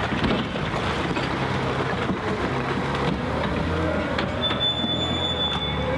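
Liebherr L566 wheel loader's diesel engine working under load as the loader pushes through brick rubble and backs away, its engine note shifting as it goes. Rubble knocks near the start, and a brief high squeal about four and a half seconds in.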